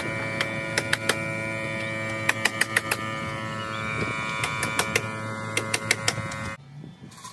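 Hammer blows driving nails into the house wall, in quick runs of three to five strikes with short pauses between them. A steady machine hum runs underneath and cuts off abruptly near the end.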